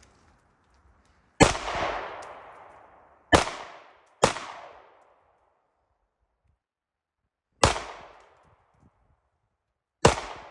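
Five shots from a 9mm handgun, fired at uneven intervals, each sharp crack trailing off in a fading echo.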